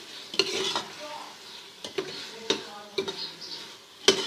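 Shredded meat and masala frying in ghee in a pot, a steady sizzle, while a spoon stirs it and knocks against the pot every half second to a second, with the loudest knock near the end.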